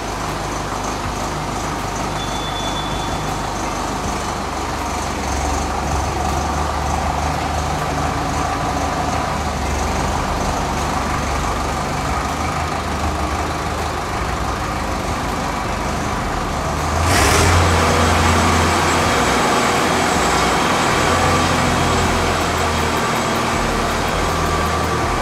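Preet 6049 Agritrac tractor's 4087 cc diesel engine running steadily just after starting, getting louder and deeper about two-thirds in as the tractor is driven off.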